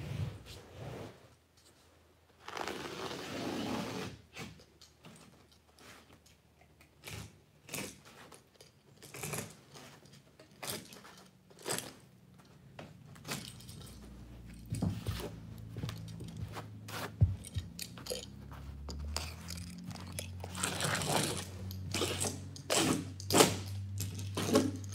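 Carpet being trimmed along the wall with a utility knife and the cut-off strip pulled away: scattered scrapes, crunches and knocks, with a longer rough tearing rasp about three seconds in. A faint low hum comes in past the middle.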